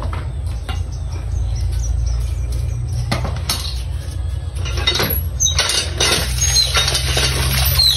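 Cast-iron hand water pump being worked, with scattered knocks of the handle and a steady low rumble. From about five seconds in, water gushes and splashes out, with a few short squeaks.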